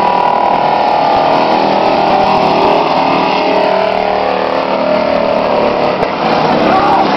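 Several demolition race trucks' engines running hard as they race around the oval. The result is a loud, steady mix of overlapping engine notes.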